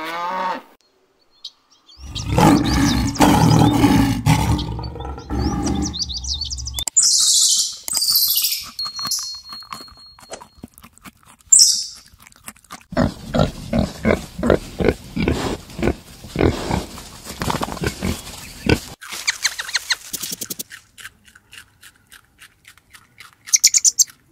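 A run of different animal calls, one after another. First comes a long, low, loud call lasting about five seconds, then high sweeping chirps, then a run of rapid pulsed calls in the middle, then scattered clicks and short high bursts near the end.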